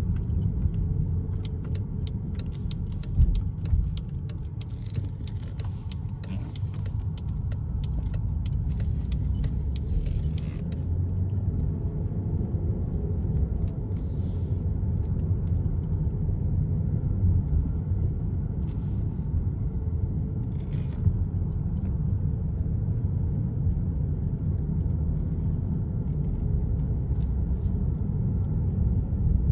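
Car cabin road noise while driving on a wet road: a steady low rumble of tyres and engine, with scattered light ticks and hiss during the first ten seconds or so.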